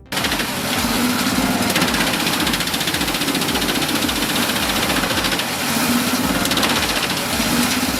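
Heavy wood-processing machinery running loud, a dense steady mechanical din that swells and eases every second or so. It starts abruptly and cuts off just after the end, with a steady electronic music beat underneath.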